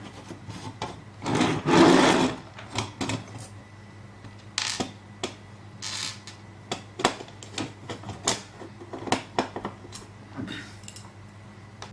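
Phillips screwdriver backing screws out of a uPVC sashlock's metal case, with a louder scrape near the start, then scattered small metallic clicks and taps.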